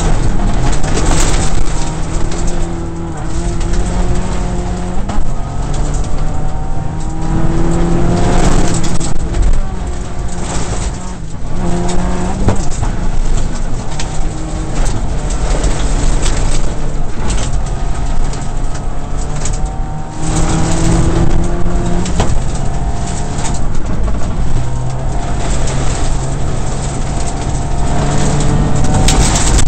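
Subaru rally car's turbocharged flat-four engine heard from inside the cabin, revving hard and rising and falling in pitch through repeated gear changes and lifts, over the noise of the tyres on gravel.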